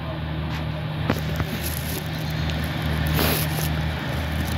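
Class 143 Pacer diesel railbus approaching at low speed, its diesel engine giving a steady low drone. A sharp click comes about a second in, and a brief hiss a little after three seconds.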